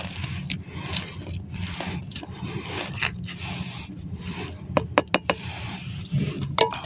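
Metal tin can of wet dog food being knocked and scraped against the food in a plastic bowl to empty it: scattered clicks and scrapes, with a quick run of sharp taps about five seconds in.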